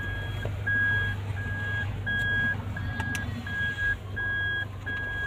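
Toyota Land Cruiser's reverse-gear warning chime sounding inside the cabin: a steady series of short high beeps, a little more than one a second, the sign that the car is in reverse. The engine hums low underneath.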